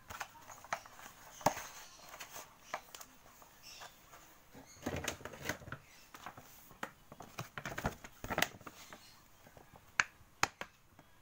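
A hand kneading oily flour dough in a plastic bowl: irregular squelches and sharp clicks from the dough and the bowl, busiest around the middle.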